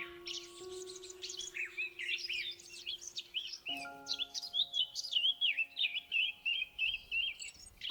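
Birds chirping and singing over soft background music of long held notes.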